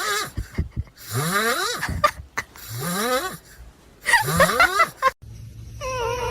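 An animal making loud, breathy, snoring-like noises, four in a row, each rising in pitch.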